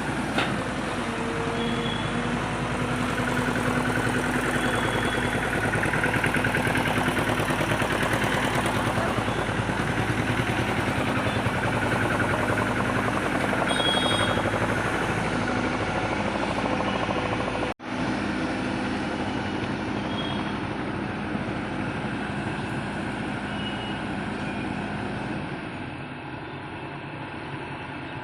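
Diesel engine of a JCB 3DX backhoe loader running steadily, with a momentary gap about two-thirds of the way through.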